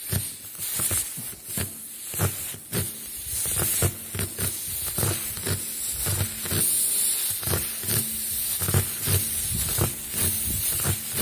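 Spiral reamer from a tyre-plug kit being worked in and out of a screw puncture in a car tyre's tread, rubbing against the rubber in strokes about twice a second. Air still in the tyre hisses out around the tool.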